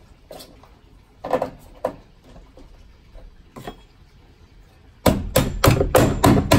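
Galvanized steel floor vent grille being knocked into a cut opening in a van floor: a few scattered knocks, then near the end a quick run of about six heavy blows, about four a second.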